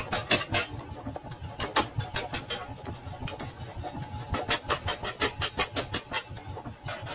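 Hand hammer striking a spring-steel knife blank on an anvil: quick runs of sharp metal-on-metal blows, about five a second at their fastest, with short pauses between runs, over a steady low hum.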